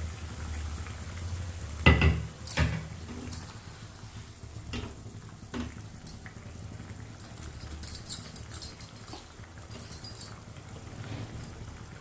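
Kitchen handling noises: scattered knocks and clinks of utensils and dishes, the loudest about two seconds in and lighter ones after.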